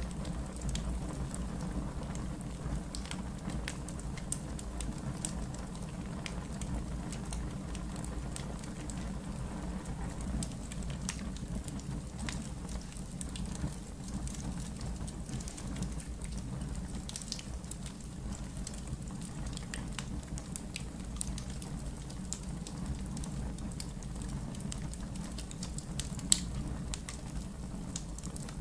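Wood fire burning in a fireplace: a steady low rush of flames with frequent scattered crackles and small pops from the logs, and one sharper pop near the end.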